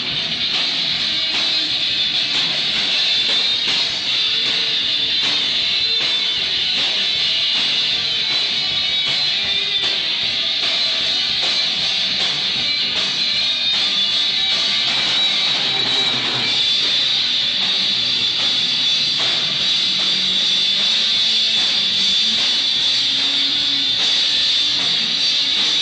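A rock band playing live: strummed electric guitar over a drum kit, loud and steady throughout.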